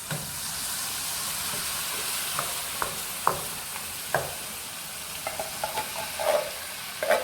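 Spinach puree sizzling in hot oil with fried potatoes in a pan. A stirring utensil knocks against the pan several times, at first singly and then in a quick run near the end.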